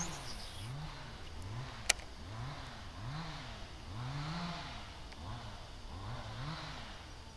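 Baitcasting reel being cranked: a low gear whine that rises and falls in pitch with each turn of the handle, a little more than once a second. A single sharp click comes about two seconds in.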